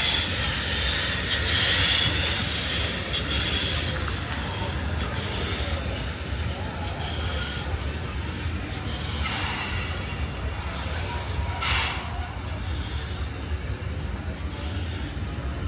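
Steam locomotive 3001 pulling away slowly with a carriage: steam exhaust chuffs and hissing come in a slow, even beat about every two seconds over a steady low rumble. One shorter, sharper burst comes about three-quarters of the way through.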